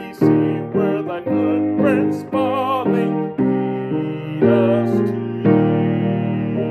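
Upright piano playing a hymn in chords struck about twice a second, with a man's voice singing the melody with vibrato over it.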